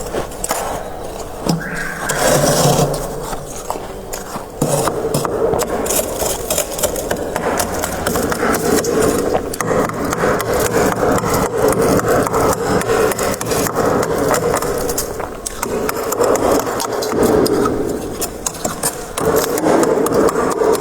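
Frost being scraped off the inside walls of a freezer: long, near-continuous rasping scrapes of a scraper through the frost, with a short pause near the middle.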